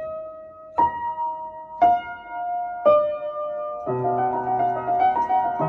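Slow solo piano music: single notes struck about a second apart, each ringing on, then fuller chords with a low bass note coming in about four seconds in.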